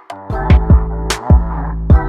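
Background electronic music with a steady beat: deep booming kicks, sharp drum hits and a sustained bass.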